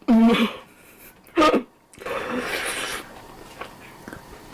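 A young woman burping: two short, loud burps about a second and a half apart, followed by about a second of breathy exhaled noise.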